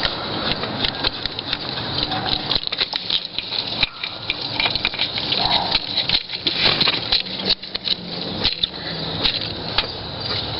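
Coolant temperature sending unit being unscrewed by hand from the engine block and its replacement threaded in, with many quick irregular clicks and taps as coolant patters out of the open port.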